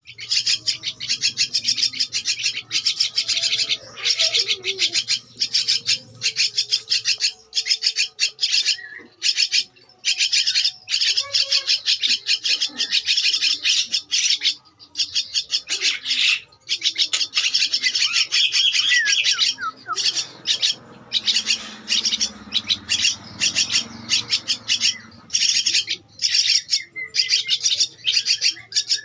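Two-week-old Javan myna chicks calling in rapid pulsed bursts of a few seconds each, with short breaks between.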